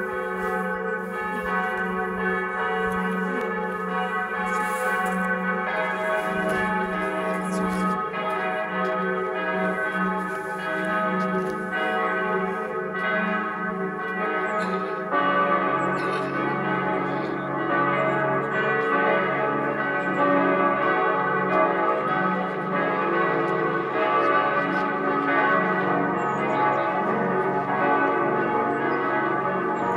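Salzburg Cathedral's bells ringing in full peal: many large swinging bells clanging together in a dense, overlapping, continuous ring. About halfway a deeper bell joins in.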